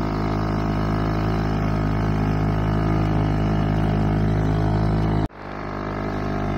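Small dinghy's outboard motor running at a steady speed, an even low drone. It drops out abruptly for a moment about five seconds in and then swells back.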